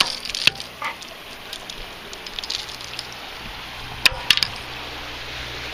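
Handling noise from unhooking a white bass and working fishing tackle on an aluminium boat deck: scattered small clicks and knocks, with a quick cluster of loud clacks about four seconds in, over a steady background hiss.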